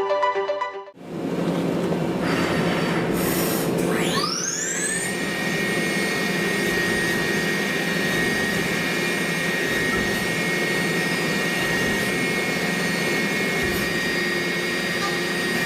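Okuma MB-56VA vertical machining centre running: its spindle whine rises in pitch over about a second as it spins up, then holds steady at speed over a steady mechanical hiss.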